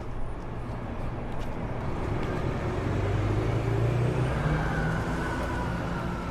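City bus engine running, its low drone rising in pitch about halfway through as the bus speeds up, then holding steady.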